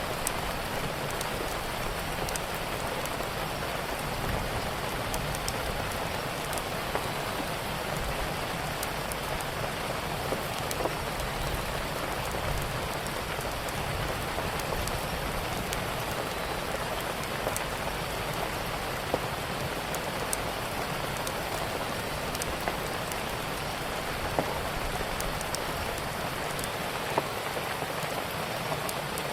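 Steady rain falling on a surface, with scattered sharp pops and crackles from a wood fire.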